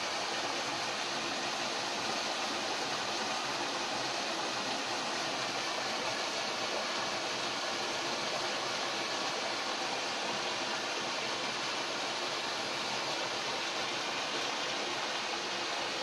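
Steady rushing of water from a small cascade pouring into a rock pool, an even sound with no breaks.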